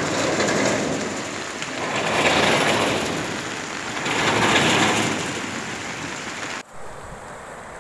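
Rushing floodwater: a steady noisy wash that swells louder twice and then drops away suddenly near the end.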